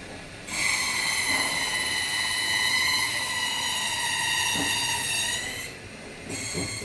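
High-pitched metallic squeal from workshop machinery, a steady ringing whine of several tones. It starts suddenly about half a second in and cuts off after about five seconds.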